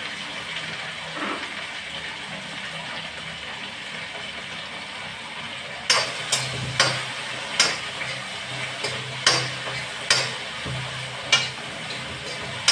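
Metal spatula stirring in a kadhai on a gas stove over a steady frying sizzle. About halfway through it starts striking the pan, a run of sharp clacks roughly one a second.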